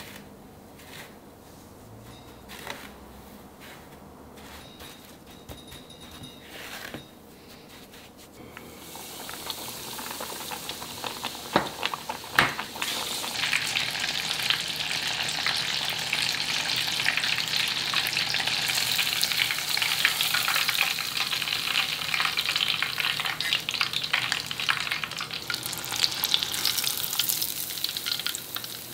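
Breaded beef cutlet deep-frying in hot oil. After a few light kitchen clicks and knocks, a sizzle starts about nine seconds in and swells to a loud, steady crackle that lasts to the end.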